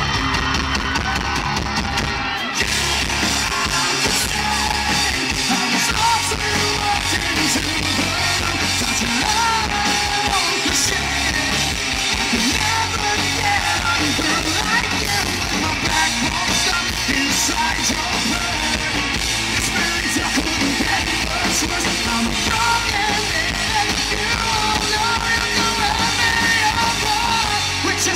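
Live rock band playing at full volume: electric guitars, bass and drums, with a male lead singer belting the vocal.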